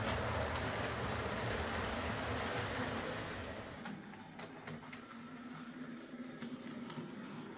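OO gauge model train running on track: a steady rumble of wheels rolling past for the first three and a half seconds. Then a quieter passage as a Hornby J83 0-6-0T tank engine runs slowly, with a light mechanism hum and scattered clicks of wheels over rail joints.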